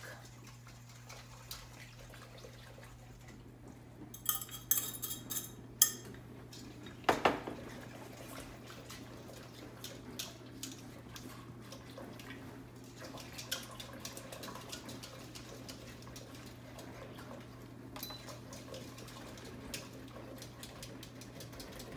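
Metal utensil stirring and scraping around a stainless steel Instant Pot inner pot, mixing gelatin into hot milk, with small ticks and scrapes. A few ringing clinks come about four to six seconds in and a sharper knock at about seven seconds.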